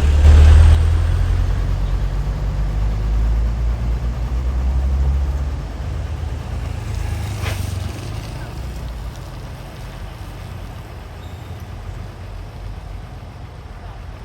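Heavy vehicle such as a truck passing close on the road, its engine rumbling loudest in the first second and then fading away over several seconds. A short hiss comes about seven and a half seconds in.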